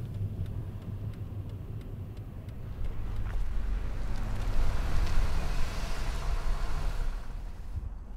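Low, steady car rumble heard from inside the cabin. A rushing noise swells about three seconds in, is loudest around five seconds and fades away, and the sound drops off suddenly just before the end.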